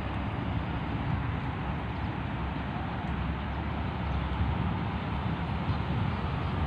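Wind buffeting the microphone outdoors: a steady, uneven low rumble with a light hiss above it.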